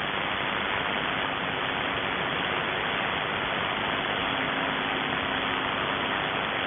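Steady static hiss from a shortwave receiver tuned to a voice channel while no voice is being sent. A faint low steady tone joins the hiss about four seconds in.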